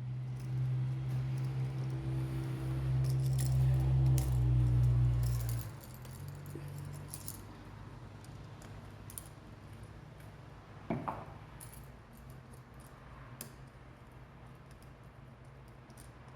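Small metal clicks and rattles of a screwdriver working the terminal screws and wires of a wall outlet, with one sharper click that rings briefly about 11 seconds in. A steady low hum runs under the first six seconds and then stops.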